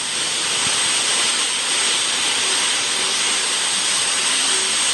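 A steady, loud rushing noise with a faint thin high whistle in it, swelling in just before and then holding level.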